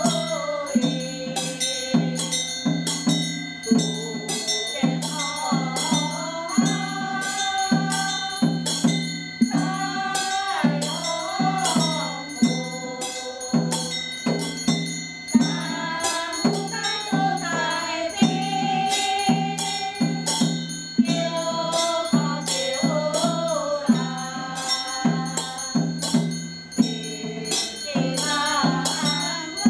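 A group of women chanting a scripture in unison, a melodic sung recitation kept in time by a large wooden fish (muyu) knocked steadily at about two beats a second.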